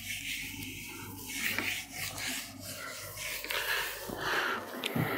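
Whiteboard eraser rubbing across a whiteboard in repeated back-and-forth strokes, wiping off marker writing.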